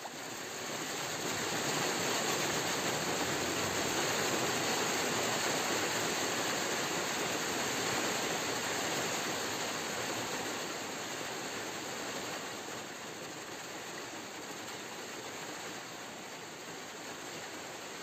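A steady rushing hiss with no distinct events, which eases slightly after about twelve seconds.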